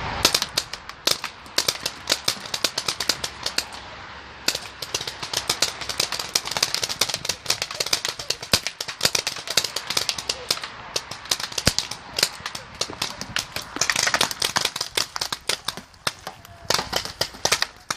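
Paintball markers firing rapidly, many sharp cracks a second in irregular volleys, with a short lull about four seconds in.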